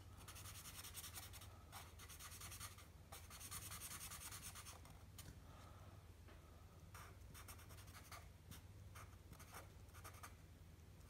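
A pen drawing on paper, faint and scratchy, in a run of short strokes with brief pauses between them; the strokes are densest in the first few seconds. A faint steady low hum lies underneath.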